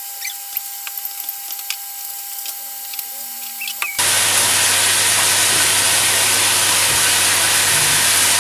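Chicken thigh, carrots and onions frying in sesame oil in a wok. The loud, steady sizzle cuts in suddenly about four seconds in; before it is a quieter stretch with a few light clicks.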